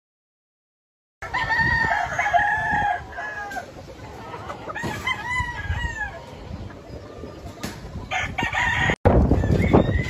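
Gamefowl rooster crowing: a long crow of about two seconds starting about a second in, falling at the end, then a second, fainter crow a few seconds later.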